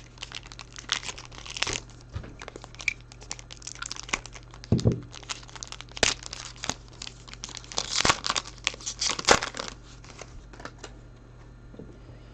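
Crinkly wrapper of a trading-card pack being pulled and torn open with some effort, in a run of crackling rustles, with a dull thump about five seconds in. The crinkling stops about eleven seconds in.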